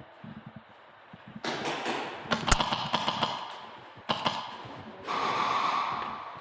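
A quick string of sharp shots from airsoft guns over a rushing background noise, with a second, shorter string about four seconds in.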